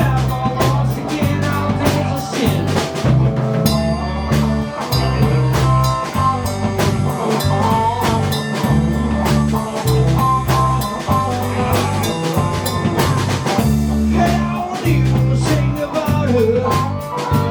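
Live band playing amplified rock-blues music, with a drum kit keeping a steady beat under bass and electric guitar.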